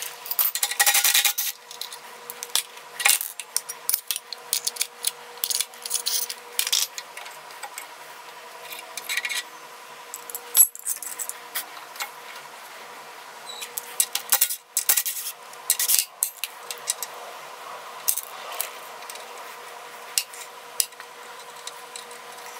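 Metal tools and torque converter parts clinking and knocking against each other as the converter is taken off a Predator 212 engine's crankshaft. Short, irregular metallic clicks and clanks, with a faint steady hum underneath.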